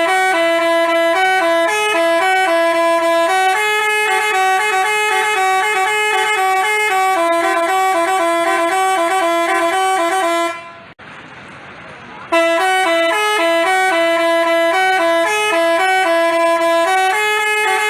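Telolet basuri bus horn playing a tune: a run of clear, stepping multi-tone notes, several pitches sounding at once. It breaks off about ten and a half seconds in, leaving only background noise, and starts up again with the same kind of melody under two seconds later.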